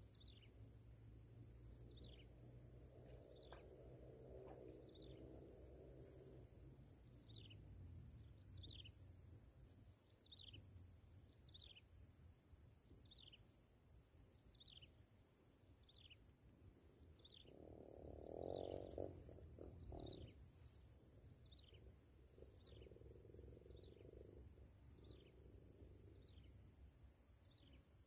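Faint outdoor ambience of a bird repeating a short, falling high call about once a second, over a steady high-pitched insect drone. About two-thirds of the way through comes a brief, louder rustle of handling noise.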